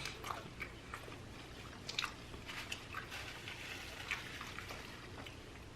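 Faint chewing and small mouth clicks of people eating doughnuts, over a low steady hum.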